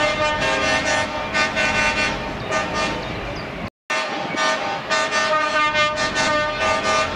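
Truck horns tooting over and over, overlapping pitched blasts that pulse every fraction of a second; the sound drops out for an instant about four seconds in.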